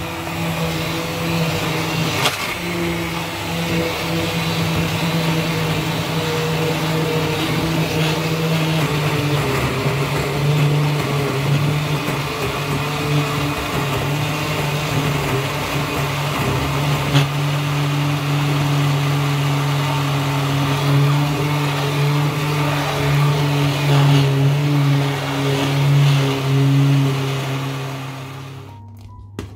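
Hand-held immersion blender running steadily in a steel pot of cooked lentil soup, puréeing the chunks smooth; its motor hum shifts slightly in pitch as it works and stops just before the end.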